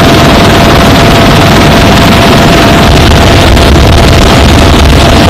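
Loud, steady noise of a military helicopter in flight, heard from inside its cabin: rotor and turbine noise mixed with wind rush, with a thin steady whine.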